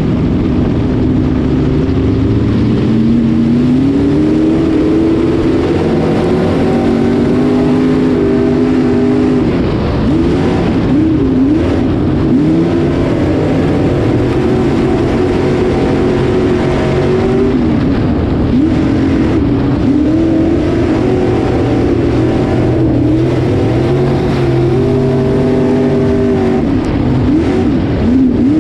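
Street stock race car's engine heard from inside the cockpit, pulling hard with a climbing pitch on a restart about three seconds in. It then falls and rises in pitch again and again, lap after lap on the dirt oval.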